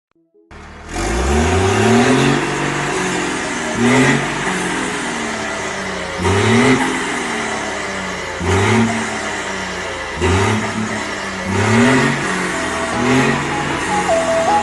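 Straight-piped diesel engine of a Volkswagen Constellation 24.250 bitruck being revved over and over: about seven throttle blips, one every two seconds or so, each rising in pitch and falling back to a rumbling idle.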